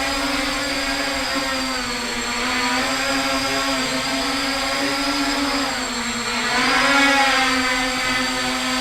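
CG 035 GPS quadcopter's motors and propellers buzzing in flight, a steady pitched hum that dips in pitch about two seconds in and again around six seconds, then climbs back as the throttle changes.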